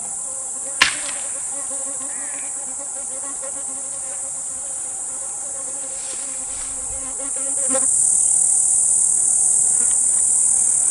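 A chorus of insects buzzing, a steady high-pitched shrill that grows louder about three-quarters of the way through. A single sharp click comes about a second in.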